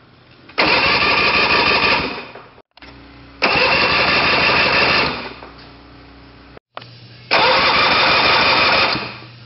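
Outboard motor engine being cranked over by its starter during a compression test, with a compression gauge in a spark plug hole. There are three cranking bursts of about a second and a half each, each starting abruptly.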